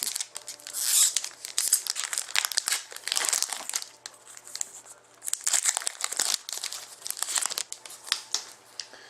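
A trading-card pack wrapper being torn open and crinkled by hand, in a run of crackling rustles with a short lull about four seconds in.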